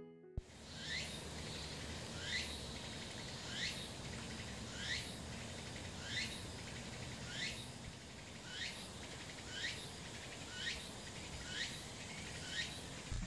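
Outdoor ambience with a short, high, fast-sweeping call repeated at an even pace, about once every second and a quarter, over a steady background hiss.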